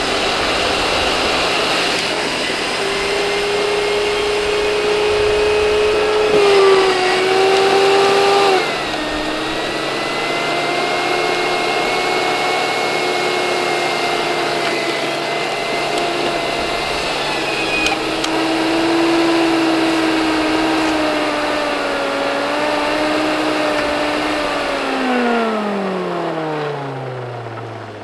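Sharp Twin Energy vacuum cleaner's motor running with a steady whine. Its pitch shifts a few times in the first half, then falls steadily near the end as the motor runs down.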